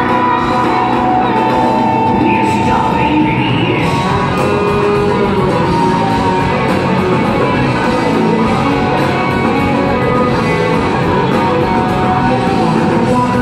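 Rock band playing live in a large theatre hall: electric guitars over drums and keyboards, steady and loud.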